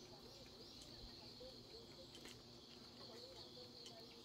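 Faint, steady insect chorus, a continuous high trilling, with a few light clicks.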